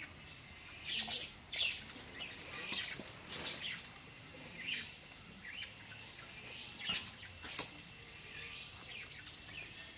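Birds chirping in short, scattered high calls, the loudest about three quarters of the way through.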